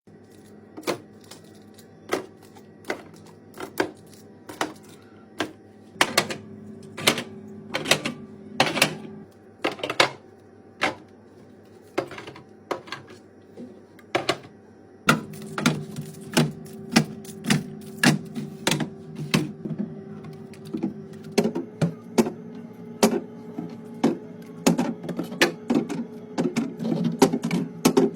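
Repeated sharp clicks and knocks at an irregular pace, one or two a second, over a steady low hum: groceries and storage containers being handled and set down while a fridge and its drawers are organized.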